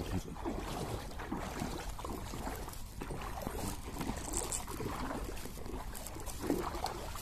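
Floodwater sloshing and splashing in an irregular, churning way over a low rumble.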